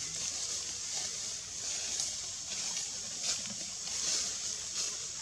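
Steady high-pitched insect drone that swells and fades in quick pulses, with a few faint ticks and rustles below it.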